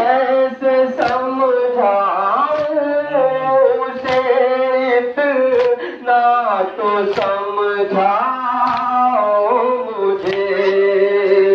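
A noha, a Muharram mourning lament, sung by one voice, with sharp slaps of hands striking chests (matam) about every second or so.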